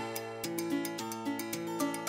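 Background music: a light plucked, harpsichord-like tune of short notes played at an even pace.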